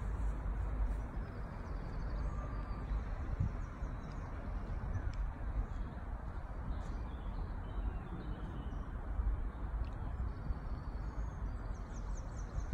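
Outdoor ambience: a steady low rumble with faint bird chirps now and then, a little busier near the end.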